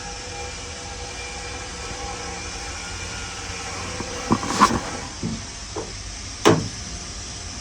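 Steady shop background hum, then a handful of sharp knocks and clinks about four to six and a half seconds in, from hand work on a milling machine.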